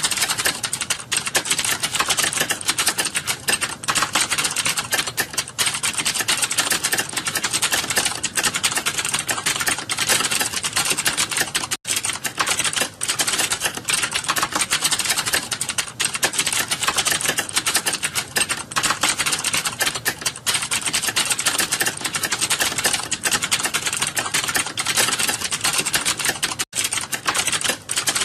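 Fast, continuous typing on a computer keyboard during a typing speed test: a dense, even clatter of key presses, many each second.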